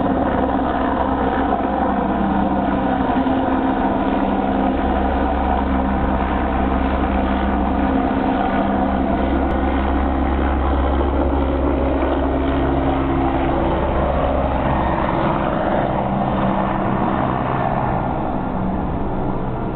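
Helicopter taking off: its rotors and engine drone steadily at close range. About three-quarters of the way through, a whooshing swell rises and then falls in pitch, and the sound begins to fade near the end.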